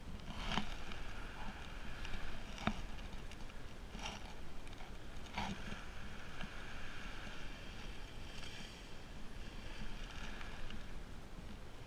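Steady outdoor wind and surf noise on an action camera's microphone, with four sharp clicks or knocks in the first half, most likely from handling the camera.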